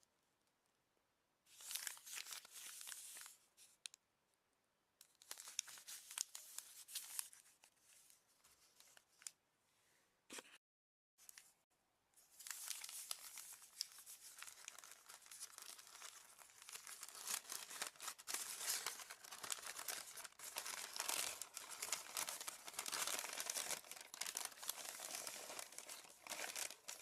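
Crinkling and tearing of paper packaging around a new red tea, in two short bouts and then nearly without pause through the second half. The sound drops out completely for about a second midway.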